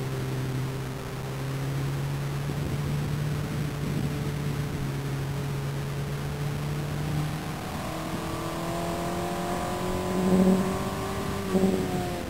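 Open-wheel formula race car's engine, heard from the cockpit. It runs at a steady pitch for the first seven seconds or so, then rises in pitch as the car accelerates from about eight seconds in. Near the end the pitch drops back, as at an upshift.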